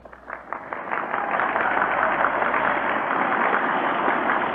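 Large crowd applauding, swelling over the first second and then holding steady, heard through a dull, band-limited old broadcast recording.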